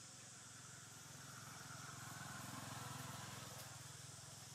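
Faint, low hum of a passing motor vehicle's engine. It swells from about a second in and fades away toward the end.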